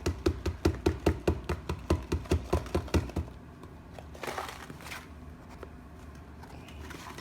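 A box of baking soda being shaken over a garbage disposal drain to pour the powder in: a quick, even run of soft knocks, about five a second, for some three seconds, then a short hiss about four seconds in.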